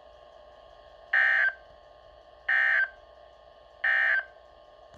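Emergency Alert System end-of-message (EOM) tones: three short SAME data bursts, each about a third of a second long and about 1.3 seconds apart. They are the digital code that marks the end of the alert broadcast.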